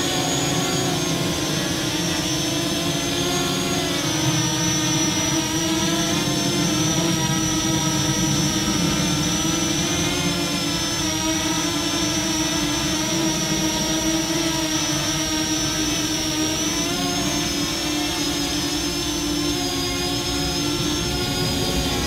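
Parrot Anafi quadcopter hovering close by, its propellers giving a steady whine whose pitch wavers slowly up and down as the drone drifts about, unable to hold its position.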